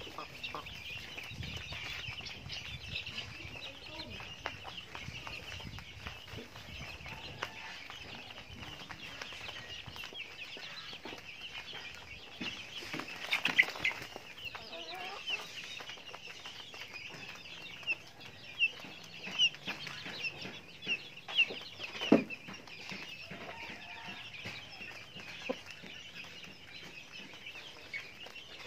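Chickens clucking and chicks peeping steadily while they peck at feed. About halfway through there is a louder rush of wing-flapping from a rooster, and a few sharp, short sounds follow later on.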